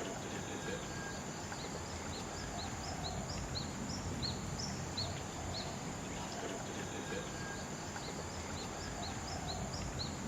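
Tropical rainforest ambience: a steady high insect drone, with short high chirps repeating about two or three times a second from about two seconds in, over a low background hiss.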